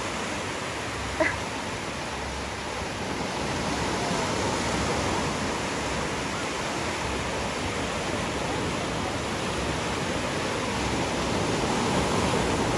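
Strong surf breaking and washing up on a sandy beach: a steady rush of waves that swells a little toward the end. A brief high cry rises above it about a second in.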